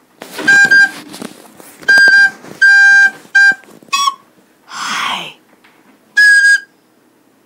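Recorder played in short, shrill toots: about six notes, most on one pitch and one higher, with a rushing breathy noise about five seconds in.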